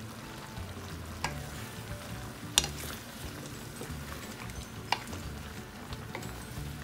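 Wooden spatula stirring crabs, squash and string beans in a simmering coconut-milk stew in a pan, with three sharp knocks as the spatula hits the pan or the crab shells, the loudest about two and a half seconds in.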